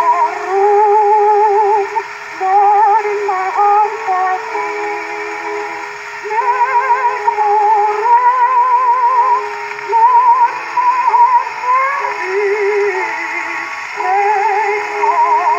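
Soprano singing with a wide, fast vibrato on a 1922 acoustic-era 78 rpm shellac record, played on a portable gramophone, in phrases broken by short breaths. A faint orchestra accompanies her under steady record surface hiss.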